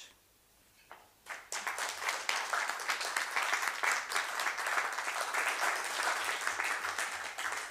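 A small audience of seated people applauding. The clapping starts after about a second of quiet and keeps up steadily.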